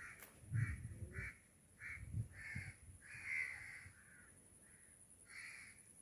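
Crows cawing in a quick series of harsh calls, about one every half second, with a longer call about three seconds in and another near the end. A few low thumps come about half a second in and again near two seconds.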